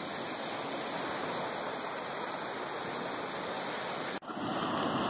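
Steady, even rushing hiss of outdoor background noise, broken by an abrupt cut about four seconds in.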